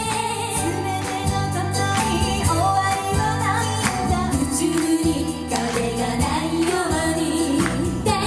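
Live female vocal group of three singing a pop song into microphones through a PA, over instrumental backing with a steady beat.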